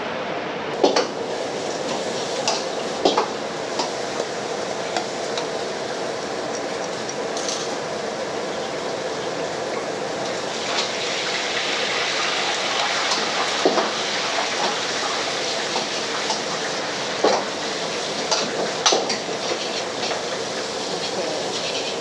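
A thin pandan-batter pancake cooking in a non-stick frying pan over a gas burner: a steady hiss with a faint hum under it, the hiss growing brighter about halfway through. A few light clicks and knocks of the pan and utensils come now and then.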